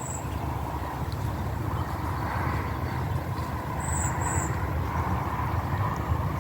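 A steady low rumble that swells slightly toward the middle, with a small bird giving two quick high chirps about four seconds in.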